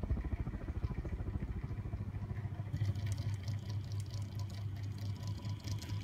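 Zhonglian mini ceiling fan running: its small motor gives a low hum that pulses evenly as the blades turn, with light ticking from about halfway through. The blades are fitted upside down, so they push less air and the motor runs under less strain and more quietly.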